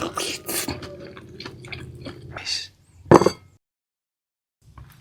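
Close-up wet eating sounds: chewing with quick mouth smacks and clicks, then a single louder smack, after which the sound cuts out completely for about a second.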